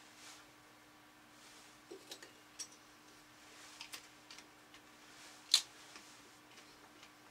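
Light clicks and clinks of a metal chalice and communion vessels being handled on an altar table, a few scattered taps and one sharper clink about five and a half seconds in, over a faint steady hum.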